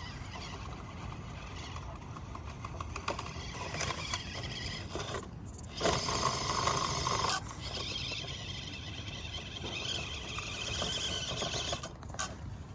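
Axial SCX24 micro RC crawler's small electric motor and gearbox whining as it crawls, varying with the throttle and loudest around six to seven seconds in.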